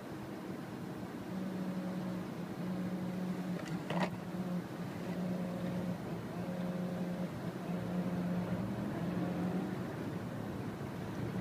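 Car driving, with steady road and engine noise heard from inside. A low tone repeats in bars of just under a second, about once a second, and there is one sharp knock about four seconds in.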